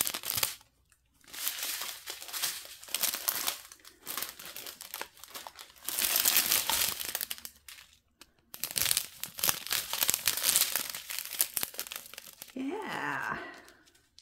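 Clear plastic strip of diamond painting drill pockets crinkling as it is handled and turned, in several bursts with short pauses, the round resin drills shifting inside.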